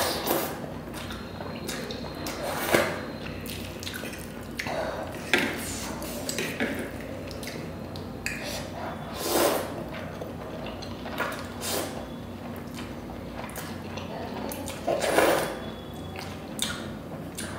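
Close-up eating sounds: a person slurping and chewing forkfuls of spicy instant noodles, with a loud wet slurp every few seconds and softer chewing and mouth smacks between, plus light clinks of a fork on the plate.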